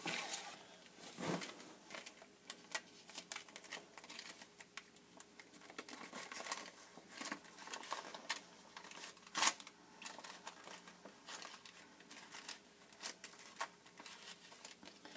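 Scattered light clicks and taps of makeup and brushes being handled, with a sharper click about a second in and another about nine seconds in.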